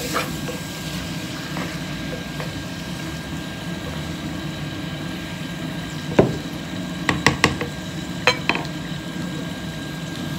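Metal utensil clinking against an earthenware cooking pot. There is one sharp knock about six seconds in, then a quick run of three and two more, over a steady low hum.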